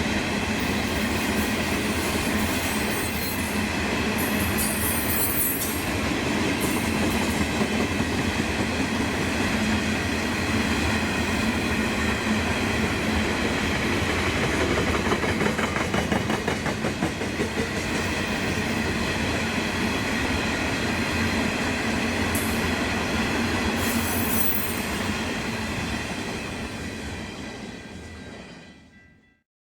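Empty grain wagons of a freight train rolling past. The wheels clatter rhythmically over the rail joints, with short high squeals a few seconds in and again near the end, and the sound fades out at the very end.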